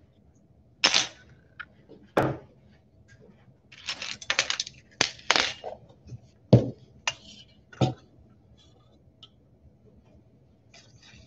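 Metal measuring spoons, a butter knife and stainless-steel mixing bowls clinking and knocking on a stainless-steel worktable as they are set down and moved: a string of separate sharp clinks, with a quick cluster about four to five and a half seconds in.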